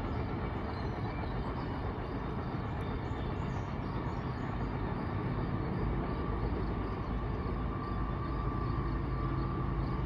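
CSX freight train's diesel locomotives approaching on the main line, a steady low rumble that grows slowly louder as it nears.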